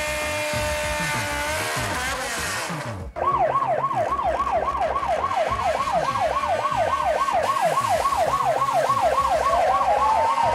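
Police siren on a fast yelp, its pitch sweeping up and down about three times a second, cutting in suddenly about three seconds in, with a rising wail joining near the end. Before it, a steady high-pitched whine that sags slightly about two seconds in.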